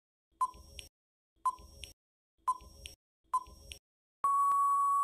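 Quiz countdown timer sound effect: a short beep once a second, four times, each followed by a fainter tick, then a longer steady beep near the end as the time runs out.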